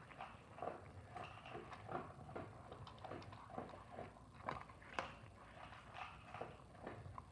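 Small dog eating dry kibble from a hand-held plastic bowl: faint, irregular crunching and clicks of kibble against the bowl, a few a second, with one sharper click about five seconds in.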